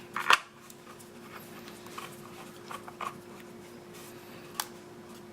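Faint clicks and rustling from handling plastic toy packaging, with a short louder noise about a quarter second in, over a steady faint hum.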